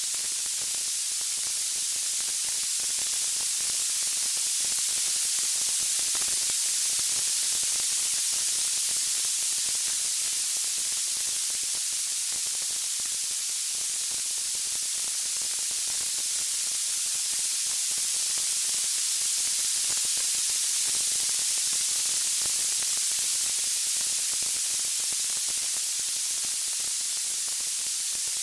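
Steady, high-pitched white-noise hiss, with no crackles standing out, swelling slightly and easing again over stretches of several seconds.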